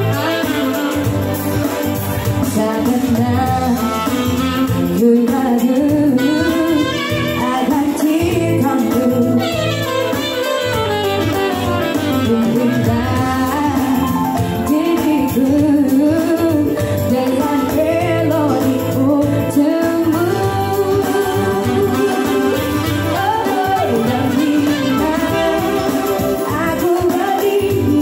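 Live organ tunggal band music: a Yamaha arranger keyboard and a saxophone playing, with a woman singing into a microphone over them from about halfway on.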